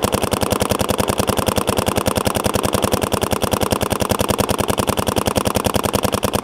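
Paintball marker firing a rapid, even stream of shots through a barrel fitted with a .683-bore CRBN FP fluoropolymer-coated PWR insert.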